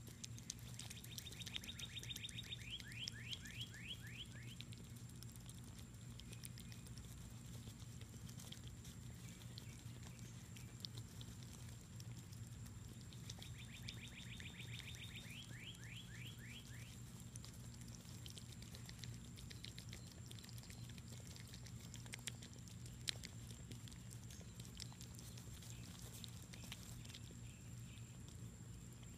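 Two nine-banded armadillos chewing on a fig: faint wet clicks and smacks throughout, with one sharper click about two-thirds through. A bird sings twice, each time a quick high trill running into a string of falling notes.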